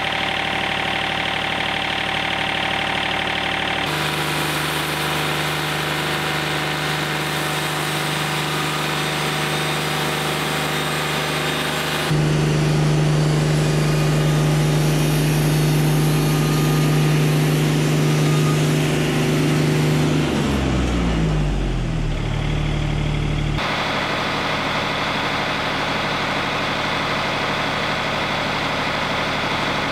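Wood-Mizer LT40 Wide sawmill engine running steadily. It runs louder for a stretch in the middle, then its pitch falls as it slows down, before a steady run resumes.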